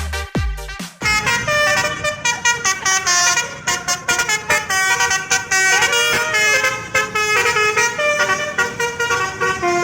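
A dance-music beat with heavy bass thumps cuts off about a second in. Then a bus's Basuri 'telolet' multi-tone musical air horn plays a melody of quick stepped notes.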